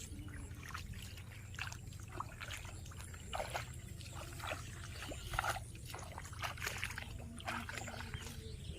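Shallow water trickling, with irregular small splashes every second or so over a steady low rumble.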